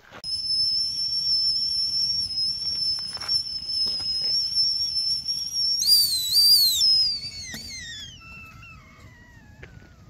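Stainless steel whistling kettle whistling at the boil: a steady high whistle. About six seconds in it wavers and grows louder as the kettle is lifted off the fire, then the whistle slides down in pitch and fades away.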